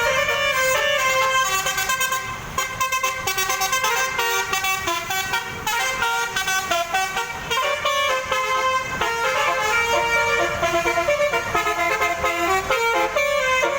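A bus's basuri telolet horn, a set of multi-trumpet air horns, playing a fast tune of many short changing notes, with a brief lull about two and a half seconds in.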